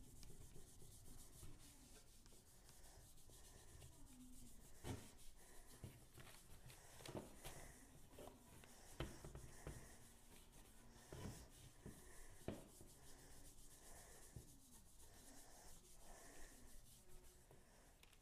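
Alcohol wipe rubbed by hand over the freshly sanded primer of a Cushman scooter's front fender: a faint, steady swishing, cleaning off sanding dust before paint, with a few brief knocks scattered through.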